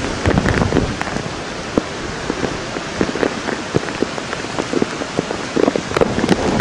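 Heavy hurricane rain spattering: a dense hiss of many sharp drop strikes.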